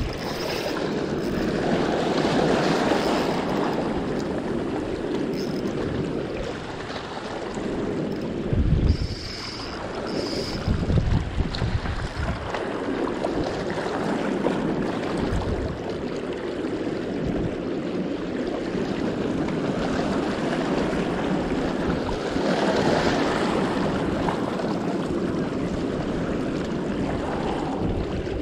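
Wind blowing across the microphone over small waves washing on a rocky reef shore, a continuous rushing with a few low buffeting thumps about nine and eleven seconds in.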